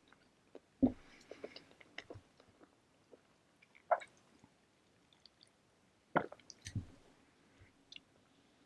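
Close-miked chewing of bread, with soft wet mouth sounds and scattered sharper clicks and smacks, the loudest about a second in, at about four seconds and around six to seven seconds.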